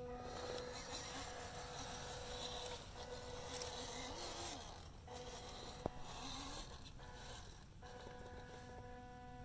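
Electric motor and gearbox of a WPL D-42 RC crawler van whining steadily at low crawling speed, with scraping over rock. The whine drops out briefly twice, and there is one sharp click about six seconds in.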